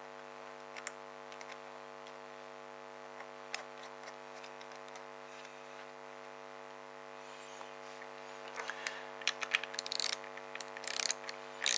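Steady electrical hum with a few light clicks, then from about eight seconds in a run of quick metallic clicks and rattles from a hand tool driving the screw back into the float bowl of the generator's carburettor.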